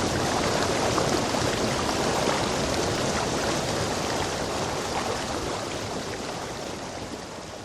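Rainforest stream rushing over rocks: a steady wash of water that fades out gradually over the last few seconds.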